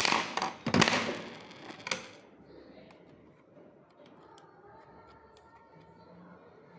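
Packaging being handled during an unboxing, with a loud burst of rustling and clattering in the first two seconds, then only faint scattered clicks.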